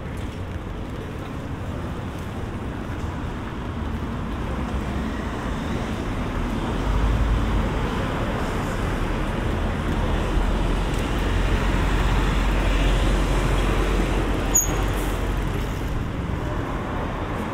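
Road traffic on a rain-wet street: a steady wash of passing vehicles, with a heavier vehicle's low rumble building up and holding for several seconds in the middle.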